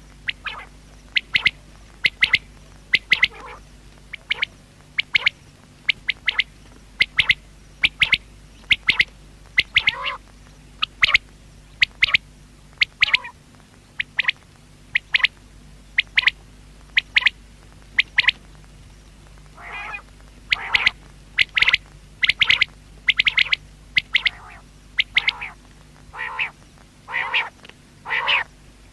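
Common quail calling: short, sharp, high notes repeated about once a second, often in quick pairs. The calls become lower and longer around two-thirds of the way in and again near the end.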